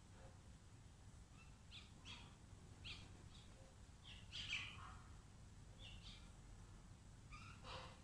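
Mynas and house crows in a foraging flock giving scattered short, faint calls. The loudest, longer call comes about halfway through, and another comes just before the end.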